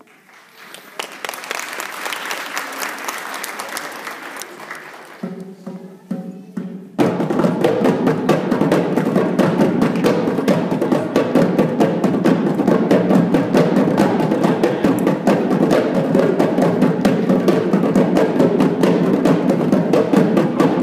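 Applause for the first few seconds, then a short voice, and about seven seconds in hand drums start a fast, steady rhythm that carries on, louder than the applause.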